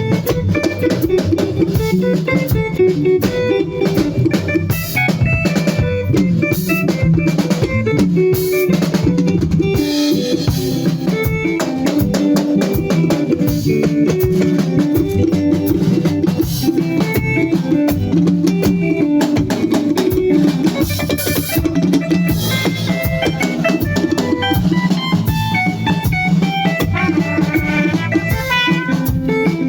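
A band playing, with a drum kit (kick, snare and rimshots) to the fore over bass and other pitched instruments.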